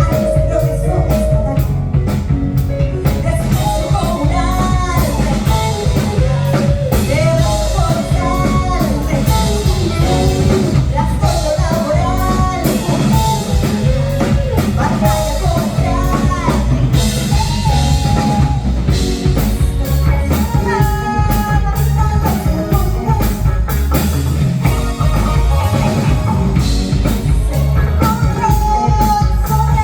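Live rock-funk fusion band playing: drum kit and bass with guitar, under a bending melodic lead line.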